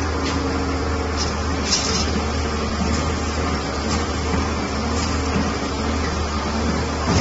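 Hyundai 300LC-5 excavator's diesel engine running steadily under hydraulic load as its scrap shear works, with a few short metallic clinks from the scrap.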